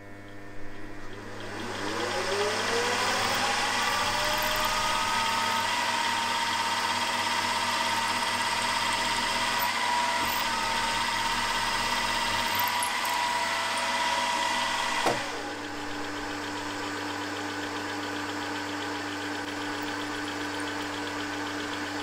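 Milling machine spindle spinning up with a rising whine, then running steadily while a drill bores the small-end hole in a 6082-T6 aluminium conrod blank. About 15 seconds in, the sound drops abruptly to a quieter, lower steady hum.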